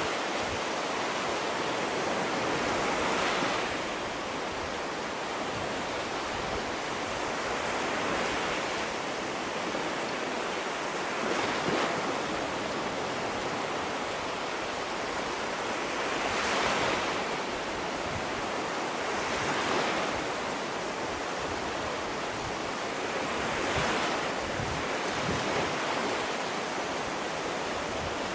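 Ocean surf breaking on a sandy beach: a steady rushing wash that swells as each wave breaks, every few seconds.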